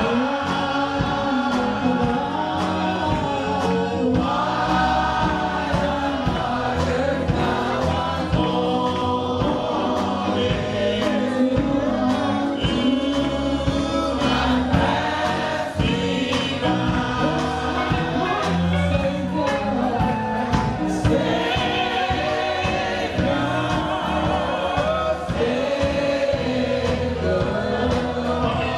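Gospel choir singing with a live band, with drum beats and sung voices.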